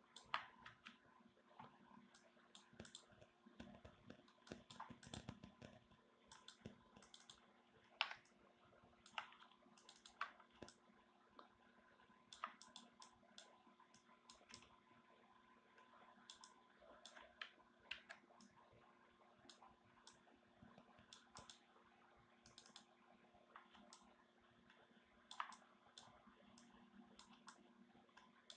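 Faint, irregular clicking of a computer mouse and keyboard, a few clicks sharper than the rest, over a low steady hum.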